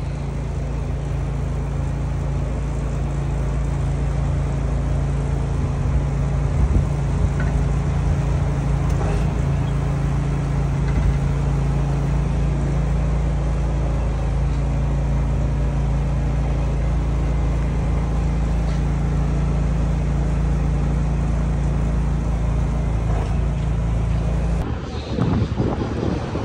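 A steady low engine drone, even in level throughout, that cuts off suddenly about 25 seconds in, replaced by wind buffeting the microphone.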